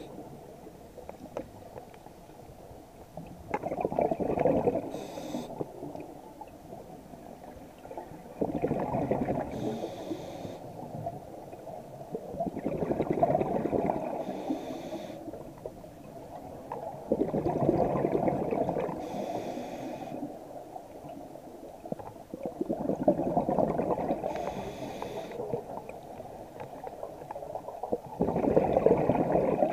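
Scuba diver breathing through a regulator underwater: a gurgle of exhaled bubbles about every four to five seconds, each followed by a brief high hiss.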